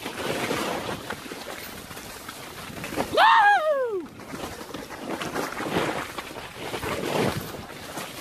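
Mountain bike descending a steep dirt trail at speed: uneven rushing wind noise on the helmet camera's microphone with the bike rolling over the ground. About three seconds in, a rider gives one loud whoop whose pitch rises briefly and then falls away over about a second.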